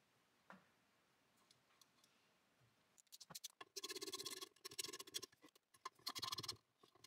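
Screwdriver turning a bearing retainer screw into an aluminium motorcycle crankcase half. After a quiet start, a run of fast, faint clicking and scraping begins about three seconds in.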